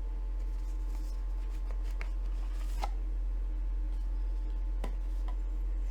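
Blu-ray case and packaging being handled, giving a few light clicks and rustles over a steady low electrical hum.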